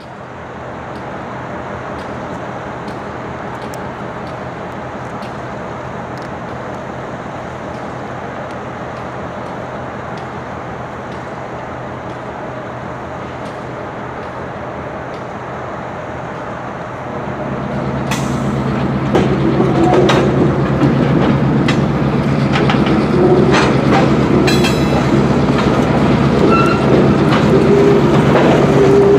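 A freight train of tank cars, worked by a CSX SW1001 switcher, rolling slowly over a street crossing. A steady rumble grows louder about 17 seconds in as the cars come across, with scattered clanks, wheel clicks and brief squeaks.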